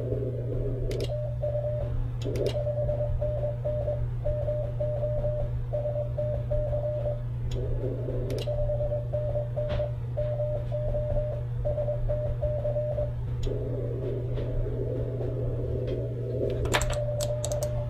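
Morse code from an Icom IC-7300 HF transceiver: a single steady note keyed on and off in dots and dashes, with receiver hiss in the pauses and a low steady hum underneath. A few sharp clicks, several of them near the end.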